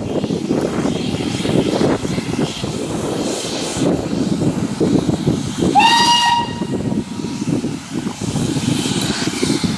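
Steam locomotive whistle: one short blast about six seconds in, rising slightly in pitch as it opens, over a steady hissing, rushing noise.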